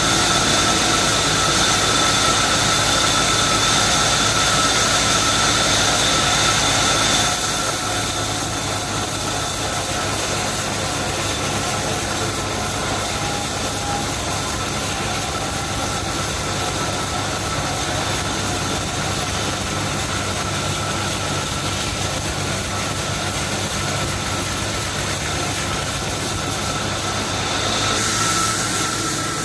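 Stationary sawmill machinery running steadily with a high whine over a constant mechanical noise. It turns a little quieter and loses part of the whine about seven seconds in, then grows louder again near the end.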